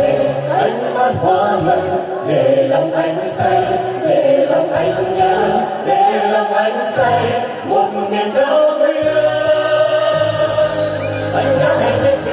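Music: a Vietnamese song sung with full instrumental backing, held sung notes over a steady accompaniment.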